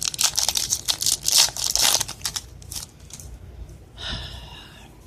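A Yu-Gi-Oh foil booster pack being torn open, the wrapper crinkling densely for about the first two seconds, then a few scattered crinkles and a brief rustle about four seconds in.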